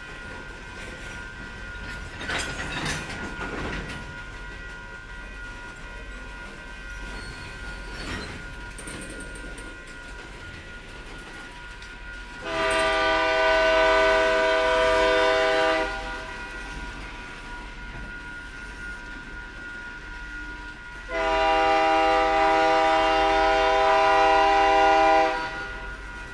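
Locomotive air horn of LSRC 6436 sounding two loud long blasts, each about three and a half to four seconds, the first about halfway through and the second near the end. Under them is the steady rumble and clatter of the work train's wheels on the rails, with a brief metallic squeal or clank a few seconds in.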